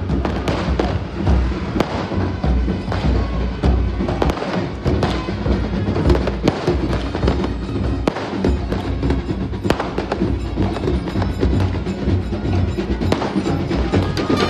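Loud, dense stream of sharp strikes and bangs with no clear tune: the percussion and firecracker din of a Kerala church-feast procession.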